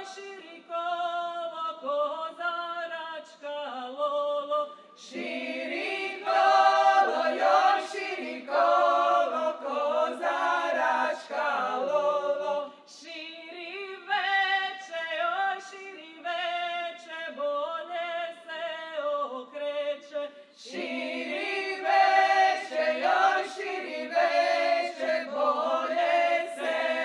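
Women's choir singing a cappella, in phrases with short breaks; the sound grows fuller about five seconds in, drops away briefly near twenty seconds, then comes back full.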